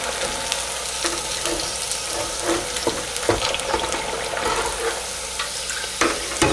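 Hot canola oil sizzling steadily in an electric deep fryer around boneless chicken thighs, with scattered sharp pops. The crackling has died down, the sign that the chicken is about done.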